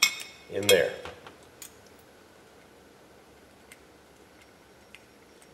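A few sparse light clicks and taps of small fuel-pump parts being handled and slid together, with a quiet room between them.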